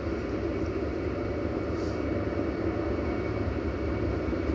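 MÁV M62 diesel locomotive's two-stroke V12 diesel engine running steadily.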